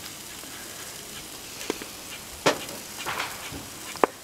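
Ribeye steaks sizzling on a hot grill grate: a steady hiss broken by several sharp pops and crackles, the loudest about two and a half and four seconds in.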